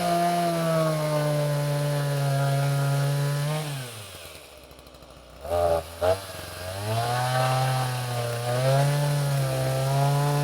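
Stihl MS 182 two-stroke chainsaw at full throttle, dropping to idle a little before halfway, blipped twice, then held at full throttle again with its pitch sagging and wavering as it cuts through a small piece of wood.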